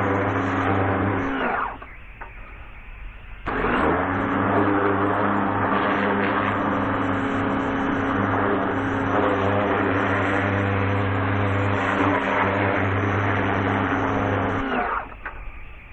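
A pressure washer running with its spray hissing. It cuts out about a second in, starts again a couple of seconds later, and cuts out near the end.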